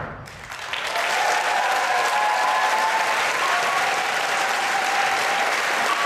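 Audience applause in a theatre hall, swelling up within the first second and then steady clapping.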